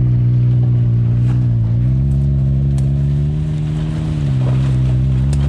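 Side-by-side UTV engine running at low, fairly steady revs, pitch dipping a little and picking back up with small throttle changes as it crawls through a mud hole.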